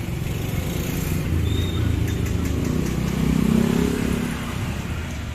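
Street traffic with a low engine rumble. One motor vehicle passes close by about three to four seconds in, its engine getting louder and then fading.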